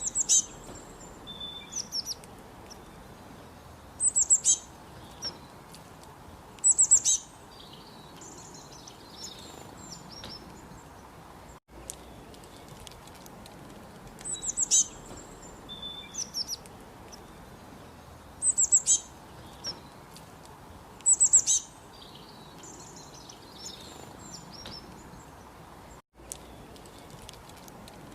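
Small birds chirping: short bursts of rapid, very high-pitched notes every two to three seconds over a steady faint hiss.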